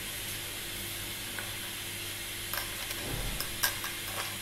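Steady background hiss and hum, then about two and a half seconds in a metal spoon starts stirring yeast, sugar and warm water in a small bowl: light scrapes and clicks, with a soft knock.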